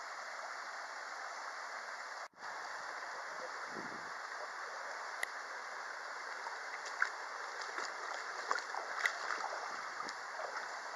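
Mountain stream running over rocks, a steady rushing of water, with a brief break in the sound about two seconds in. Scattered short ticks and small splashes in the second half.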